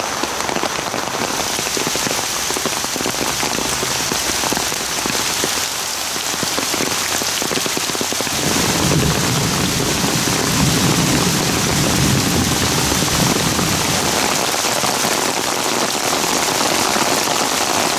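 Heavy rain falling steadily, a dense even hiss of countless drops, fuller and a little louder in the middle of the stretch.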